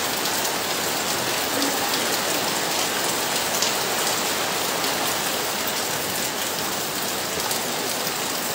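Rain falling steadily, a dense even hiss of drops.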